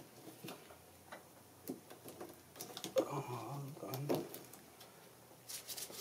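Faint scattered clicks and taps of gloved hands handling the wiring connector and trim at the liftgate latch switch, with a brief low murmur of a voice about three seconds in.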